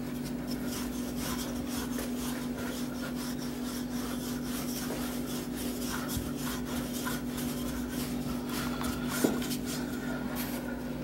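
Wooden rolling pin rolling out floured puff pastry dough on a wooden tabletop: an irregular rubbing and scraping, over a steady low hum, with one small knock about nine seconds in.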